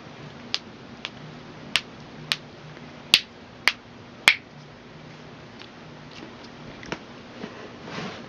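Joints cracking one at a time with sharp pops: seven clear ones in the first four and a half seconds, then a few fainter ones.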